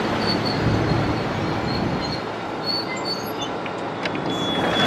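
EP2D electric train cars rolling slowly past as the train brakes to a stop, a steady rumble of wheels on rail with several short, high-pitched squeals from the braking wheels and a longer squeal near the end.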